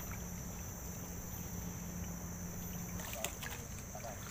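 Water swishing and sloshing around legs wading through deep floodwater, over a steady high insect drone.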